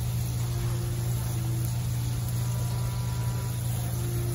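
A steady low hum over white wine and butter sauce simmering in a skillet, just brought back to a quick boil after deglazing.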